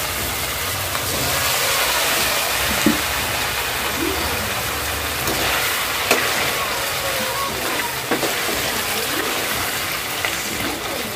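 Idli pieces deep-frying in hot oil in a kadai: a steady, loud sizzle of bubbling oil, with a few sharp clinks of a metal spoon against the pan.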